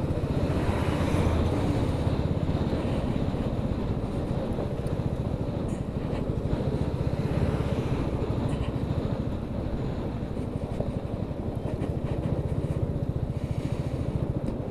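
Motorcycle engine running steadily while riding, with a dense low rumble of tyres on a rough dirt and gravel road.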